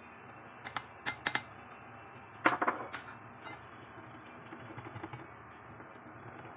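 A few sharp clicks and taps in the first three seconds, then soft, steady whisking of cake batter in a bowl.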